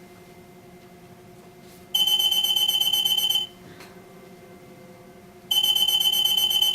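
Electromagnetic (EM) anti-theft security gate alarm sounding twice, a high-pitched buzzing beep each time lasting about a second and a half, signalling that the gate has detected an EM strip.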